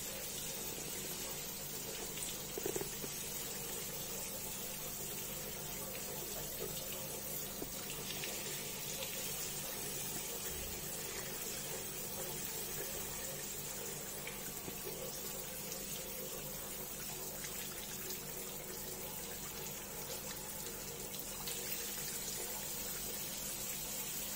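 Water running steadily from a tap, an even hiss.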